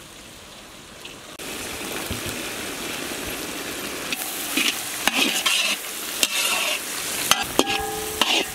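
Chopped vegetables frying in hot oil in a large wok: a steady sizzle that starts about a second and a half in. From about halfway, a metal spatula scrapes and clanks against the wok, ringing in the last second or so.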